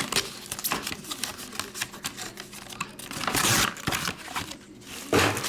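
Trading-card box and packs being opened by hand: a run of small clicks and crinkles of wrapper and cardboard, with two louder ripping, rustling sounds, one about three seconds in and a brief one near the end.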